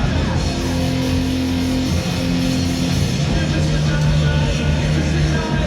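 Loud live rock music with distorted electric guitar, continuous and dense, with sustained low notes and sliding pitches above.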